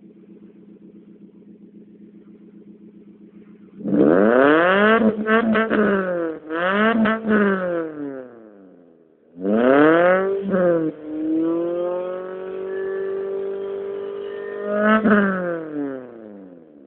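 Suzuki SX4's four-cylinder engine heard through an aftermarket exhaust, with the front catalytic converter removed and two resonators and a rear muffler fitted. It idles steadily, then about four seconds in it is revved up and let fall several times. It is held at raised revs for a few seconds, then given a last sharp blip and drops back down.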